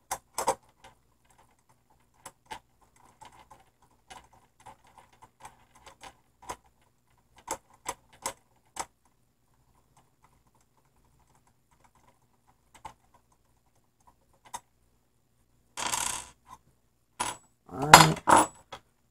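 Scattered light clicks and clinks of small metal parts as the wire clamp is worked off a 50-amp receptacle by hand. Near the end come a short scrape and a louder clatter of metal parts and tools on a wooden table.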